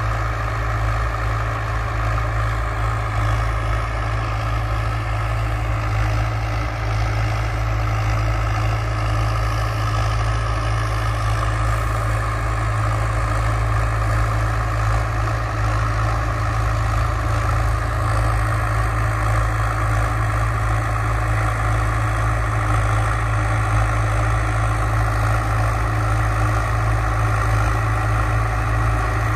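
Standard 460 DI tractor's diesel engine running steadily while it pulls a seed drill across the field.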